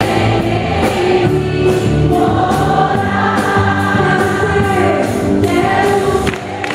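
An upbeat Christian worship song sung by many voices together over a steady beat.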